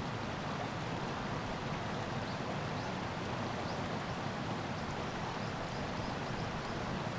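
Steady rushing of shallow water flowing along a concrete channel, with a few faint ticks of small splashes.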